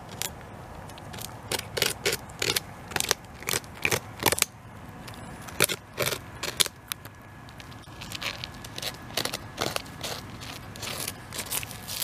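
A beaver gnawing into a tree trunk with its incisors, an irregular run of sharp crunching, scraping bites as bark and wood chips tear away. The bites are loudest in the first half and turn softer and quicker after about eight seconds.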